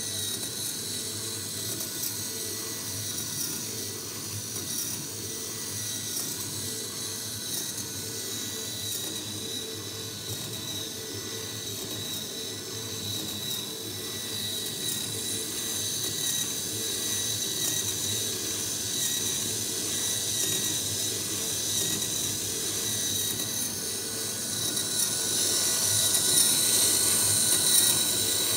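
Teching miniature metal four-cylinder engine model running on its small electric drive motor: a steady high whine with the rapid ratcheting clatter of the timing chain, gears and valve train. It grows louder over the last few seconds.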